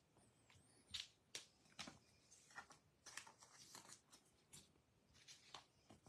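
Faint, irregular clicks and rustles of a stack of baseball trading cards being flicked through by hand.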